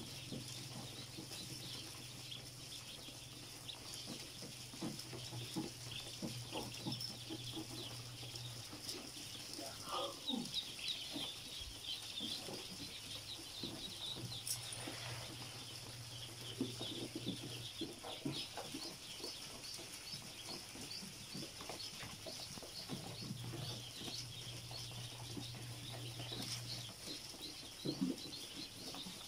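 A crowded brood of ducklings peeping nonstop, many thin high peeps overlapping, with small scuffles and knocks among them. A low hum sounds in the background and drops out and returns a few times.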